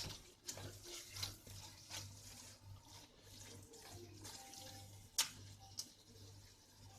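Spoon stirring biryani masala frying in a pan, faint, with a scrape or tap now and then and one sharper tap about five seconds in.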